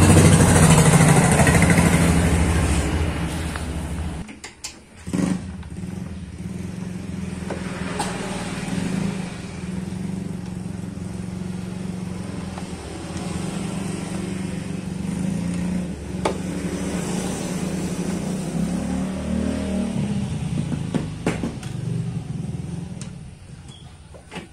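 Honda Vario 125 scooter engine running, with a rough sound from the CVT area. It breaks off suddenly about four seconds in and is followed by a steadier low drone with a few sharp clicks.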